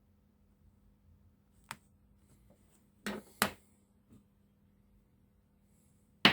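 A few sharp knocks and clicks, a light one, then two louder ones close together, then the loudest near the end, over a faint steady hum.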